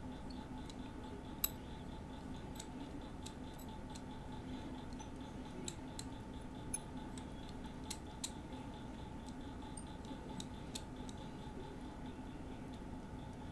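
Scattered small, sharp metallic clicks and ticks of a tool tip and tiny metal model parts against a metal plate as they are worked by hand, the loudest about a second and a half in. A steady low hum runs underneath.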